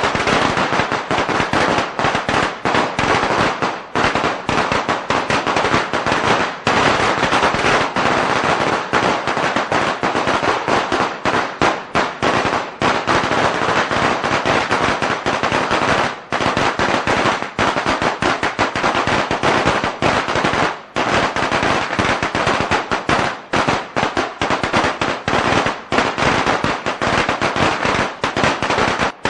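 A long string of Chinese firecrackers (biānpào) going off in a loud, continuous rapid crackle of bangs, with only brief momentary lulls.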